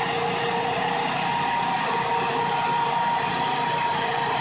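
A large engine idling steadily, with a constant hum and a higher steady whine that joins about a second in.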